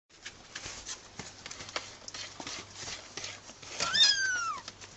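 Young kittens scratching and scuffling in a plastic litter tray of loose litter: irregular small scrapes and clicks. About four seconds in, one kitten gives a single high mew that falls in pitch.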